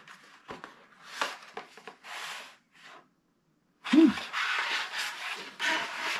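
Cardboard smartwatch box being opened: the inner tray scrapes and rubs as it slides out of its paper sleeve, in several separate scrapes, busiest in the last two seconds. A short low hum-like sound comes about four seconds in and is the loudest moment.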